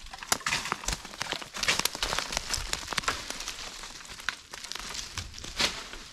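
Footsteps crunching on dry oak leaves and stony ground: a dense run of crackles that thins out after the middle.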